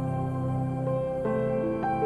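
Calm new-age background music: held notes in soft chords, moving to a new chord a little past the middle.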